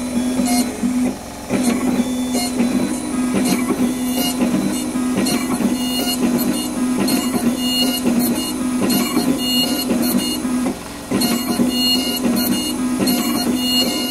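Sirona inLab MC XL dental milling unit milling a block: a steady machine hum with irregular clicks and on-and-off high-pitched tones. The hum briefly drops out about a second in and again near the end.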